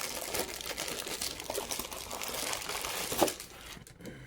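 Plastic packaging crinkling as it is handled, a dense rustling crackle with one sharper crunch about three seconds in, then dying down.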